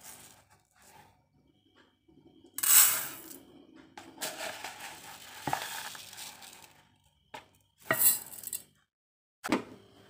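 Uncooked rice grains poured from a plastic measuring cup into a rice cooker's inner pot, in about three separate pours, each a brief hissing patter of grains landing on the pot.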